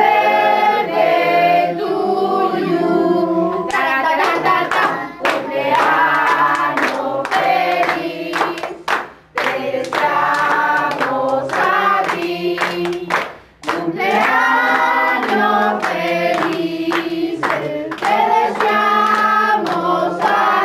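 A group of people singing together, with hand-clapping along to the song joining in about four seconds in.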